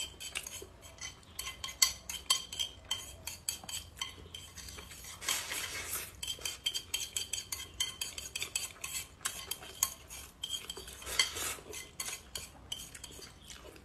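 Chopsticks clicking and scraping rapidly against a glazed ceramic bowl as rice and broth are shovelled from the rim into the mouth. Two longer noisy slurps come about five and eleven seconds in.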